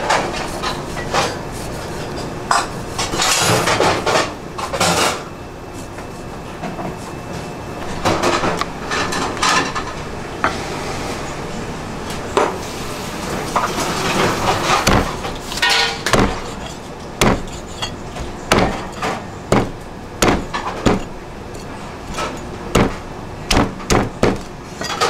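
Steel cleaver knocking against a round wooden chopping block while mullet is cut up: sharp knocks, coming in quick succession through the second half, with stretches of scraping earlier on.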